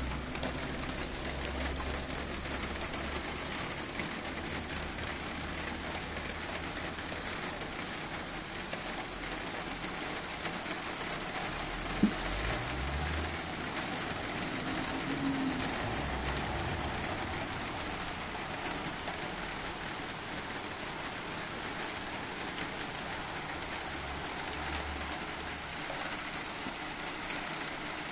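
Steady rain falling during a storm, with a single sharp click about twelve seconds in and low rumbling now and then underneath.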